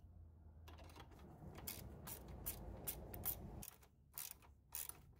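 Socket ratchet clicking as the nut and bolt of a car battery's hold-down bracket are tightened: a run of faint, quick clicks from the ratchet's pawl, starting about a second in.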